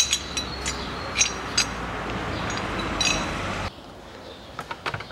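Metal parts and hand tools clinking as they are handled in a car's engine bay: a few sharp, ringing metallic clinks over a steady hiss. The hiss cuts off suddenly about three and a half seconds in, leaving fainter clicks.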